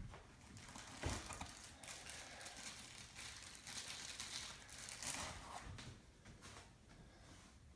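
Faint rustling and crinkling of packaging with a few light knocks, as parts of a heavy resin statue are handled and unwrapped.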